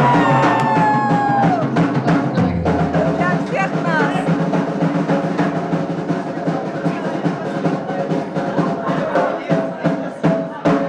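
Live band music: held instrument notes, with a falling slide near the start, over drum-kit hits that grow louder and more regular toward the end.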